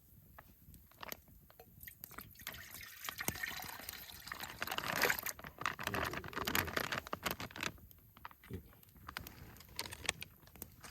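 Oden broth pouring and splashing from its pack into a cooking pot, from about two and a half seconds in until about eight seconds, after a few small clicks and knocks of handling.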